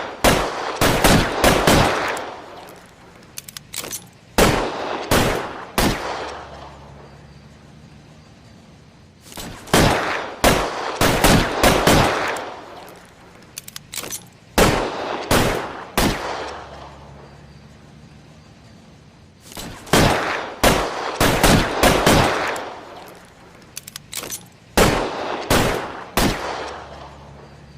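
.38 Detective Special revolver firing shots in quick strings, each shot with a ringing tail, and a few quieter clicks between strings. The same sequence repeats about every ten seconds, three times.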